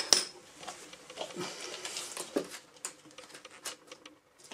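Light clicks and taps of small metal door hinges and screws being handled and set down on a door panel, the sharpest click just after the start.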